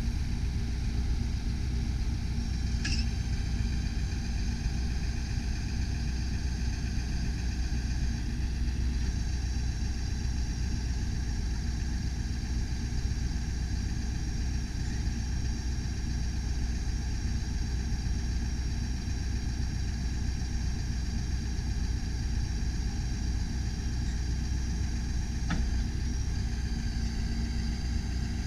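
Ford F-550 bucket truck engine idling steadily while its hydraulic aerial boom is raised and extended, with a steady high whine over the low engine rumble. Two short clicks come about 3 seconds and 25 seconds in.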